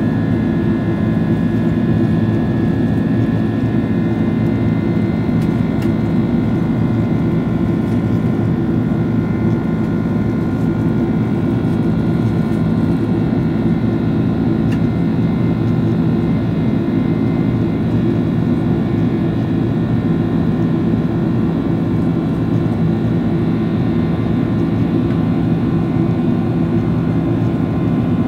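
Cabin noise of a Boeing 767-400ER climbing after takeoff, heard inside the cabin beside the wing: the turbofan engine's steady drone with a heavy low rumble and several steady whining tones, one higher whine fading within the first few seconds.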